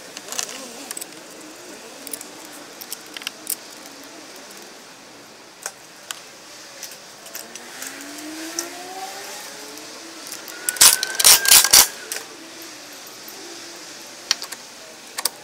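Metal hand tools clinking and knocking on engine parts, in scattered clicks, with a short run of loud, rapid clacks about eleven seconds in.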